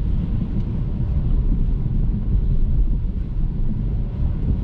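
Steady low rumble of a car being driven, engine and tyre road noise heard from inside the cabin.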